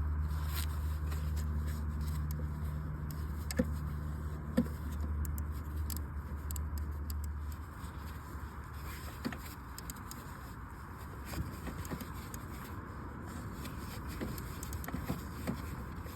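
Scattered metallic clicks and taps of a ratchet and socket working the coil pack's 10 mm bolts loose, over a steady low hum that stops about seven seconds in.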